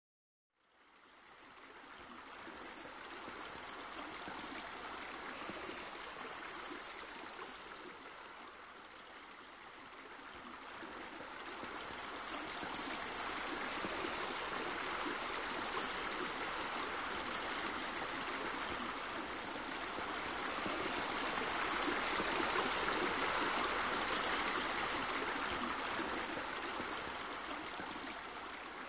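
Steady rushing of flowing water, fading in just after the start, swelling gently and easing off near the end.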